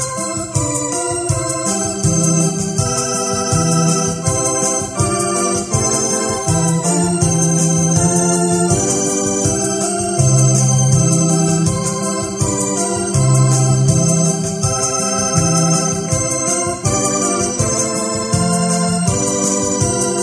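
Electronic arranger keyboard played with an organ sound: chords and a melody over a steady beat and a moving bass line.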